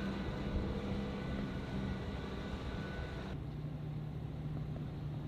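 Engine of a munitions tow vehicle running steadily at low revs, a low even hum. A little over three seconds in, the sound switches abruptly to a slightly lower, duller steady hum.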